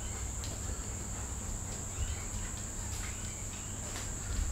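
Insect trilling steadily at a high pitch over a low hum, with a few faint ticks.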